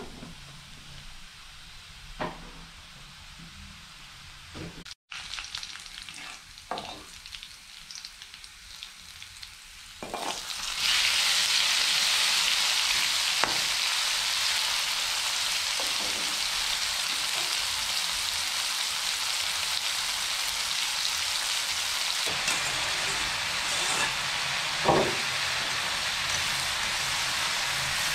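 Sliced onions frying faintly in oil in a wok, with a few light clicks. About ten seconds in, a loud steady sizzle starts as the spiced termite mushrooms go into the hot oil, and a metal ladle stirs them, clanking once against the wok near the end.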